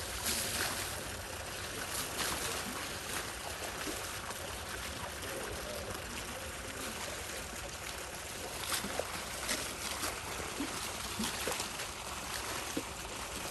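Water trickling and splashing as an elephant bathes, with a few sharper splashes now and then.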